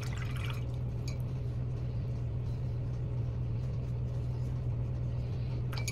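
Steady low hum, with a few faint light taps near the start and near the end.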